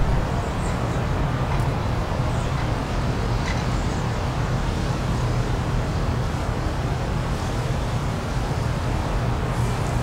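Wind blowing steadily: a continuous rushing noise with most of its weight low down, holding an even strength without gusts.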